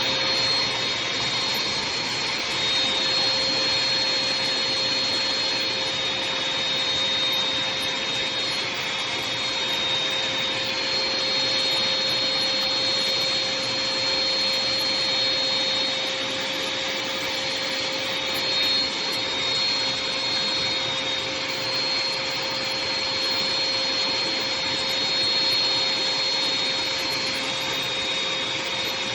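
Craftsman CMXEVBE17250 2.5-gallon wet/dry shop vac running steadily, a constant rushing of air with a steady hum and a high whine over it.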